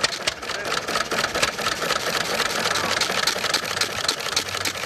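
Single-cylinder hit-and-miss engine running, with a steady rapid clicking of about four clicks a second.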